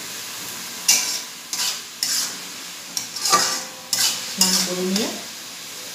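Metal spatula scraping and stirring food in a large steel wok, in several short strokes, over a steady sizzle of frying.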